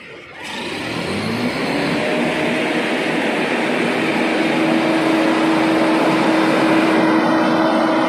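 A machine's engine starting up about half a second in and spinning up, its pitch rising over about three seconds and then holding steady, with loud rushing noise over it.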